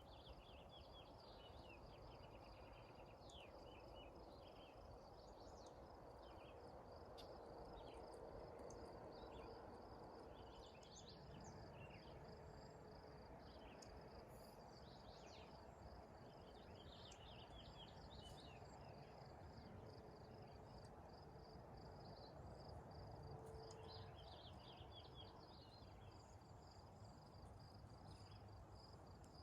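Faint outdoor evening ambience: a steady, high insect trill, like crickets, runs throughout, with many short bird chirps scattered over it and a soft low hiss beneath.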